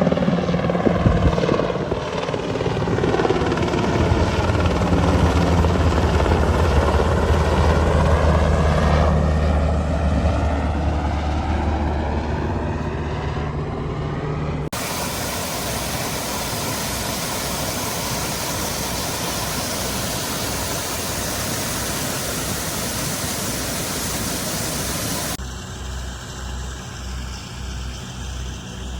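Helicopter flying overhead: a steady engine and rotor drone whose tone sweeps as it passes. About halfway in it cuts suddenly to an even rush of noise, and near the end a low, regular rotor thump comes in.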